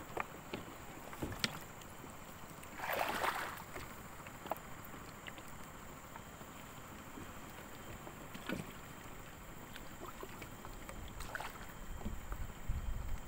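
Water sloshing and lapping with scattered small knocks, and a louder splash about three seconds in.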